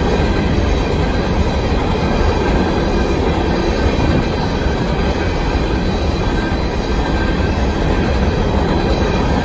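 Freight train of aggregate hopper cars rolling past at a grade crossing: a loud, steady rumble of steel wheels on the rails that does not let up.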